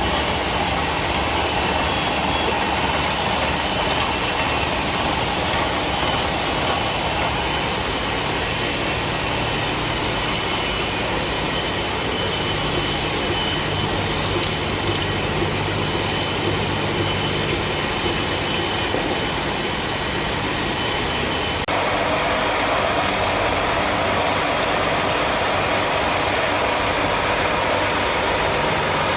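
CNC machine cutting a gear, running with a steady mechanical noise. Its sound changes about two-thirds of the way through.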